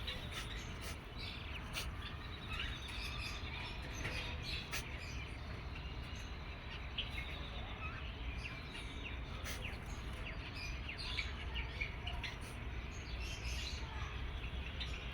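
Eight-day-old cockatiel chick chirping in short, repeated high calls over a steady low hum.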